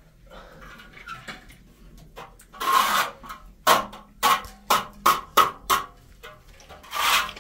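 Repeated rasping scraping strokes: one longer stroke about two and a half seconds in, then six short strokes in quick succession, about two a second, and another longer stroke near the end.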